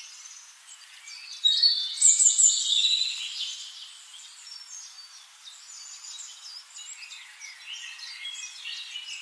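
Wild birds chirping and calling over one another in high, short notes, louder for a couple of seconds from about a second and a half in.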